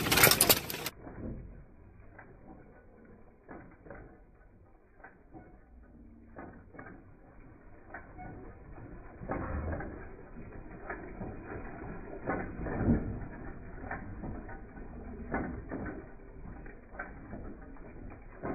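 Antique single-cylinder stationary gas engine, a Domestic, running slowly with an irregular clicking and ticking from its valve gear and igniter, and a heavier beat now and then, about every three seconds later on. A brief louder noise opens the first second.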